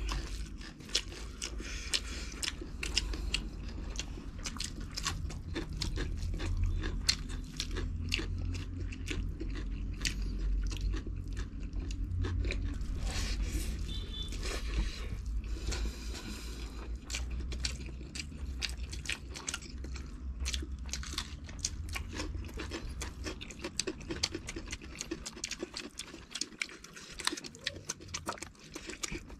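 Two people chewing and crunching mouthfuls of a rice-and-curry meal eaten by hand, picked up close: a dense, continuous stream of quick wet clicks and crunches.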